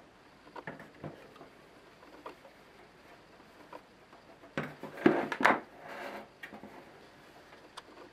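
Handling noise from a Denon AVR-1602 AV receiver being turned and tipped up on a table: scattered light knocks and rubbing, with a louder cluster of knocks and scraping about five seconds in.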